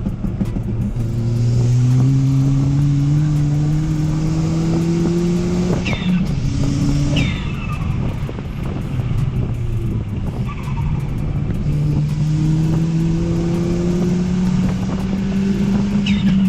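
Ford Fiesta ST's turbocharged 1.6-litre four-cylinder, modified with a catless downpipe and cowl intake, accelerating hard: the engine note climbs steadily, breaks off for a gear change about six seconds in with a hiss and brief whistle, and climbs again from about eleven seconds on.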